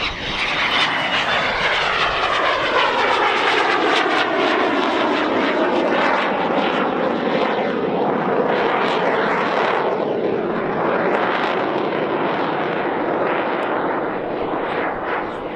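The twin General Electric J85 turbojets of a Cessna A-37B Dragonfly in a loud jet flyby overhead. The pitch of the whine falls over the first few seconds as the jet passes, then settles into a steady rush.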